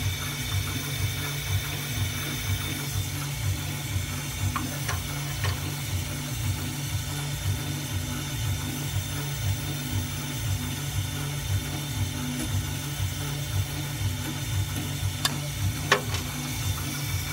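Roland MDX-40 CNC mill's spindle running steadily with a conical bit cutting jeweler's wax, about 6 to 7 millimetres deep in one pass, on the rotary fourth axis: a steady high whine over a low hum with a quick regular pulsing. A couple of sharp clicks come near the end.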